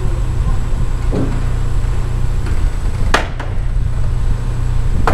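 Mobile crane's diesel engine running steadily with a low rumble while unloading, with a few sharp knocks of goods being handled, the loudest about three seconds in.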